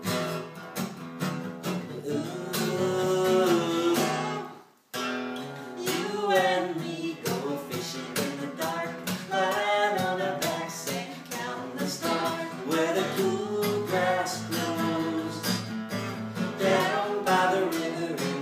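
Two acoustic guitars strummed and picked in a country song's instrumental passage, with a sudden brief drop-out about five seconds in.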